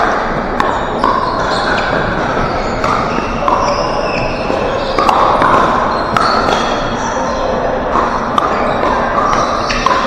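Pickleball rally: sharp pops of paddles striking the plastic ball every second or two, with short squeaks of shoes on the hardwood floor, all echoing in a large gym.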